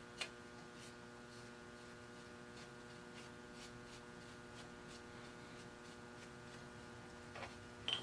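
A steady electrical hum, with a single click just after the start and a brief soft rustle near the end.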